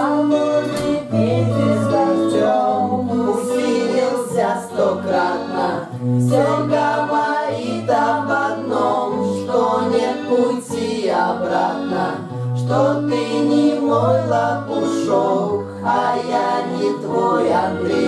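Music: a song with several voices singing in harmony over held bass notes.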